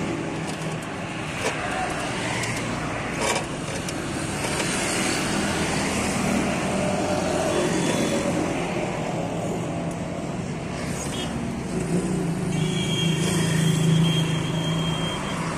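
Steady motor-vehicle engine and traffic noise, with an engine's hum and a high whine growing louder a few seconds before the end. There is a sharp click about a second and a half in and another about three seconds in.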